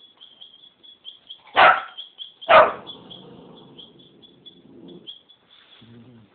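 An 11-week-old Rottweiler puppy barking twice, about a second apart. The second bark trails off into a quieter, lower sound for about two seconds.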